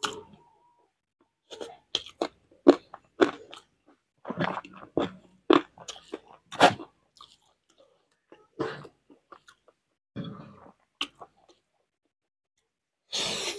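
A person chewing and crunching a mouthful of rice and raw green chilli close to the microphone: wet mouth clicks and crunches in uneven bursts, dense at first, then sparser, with a louder, noisy burst near the end.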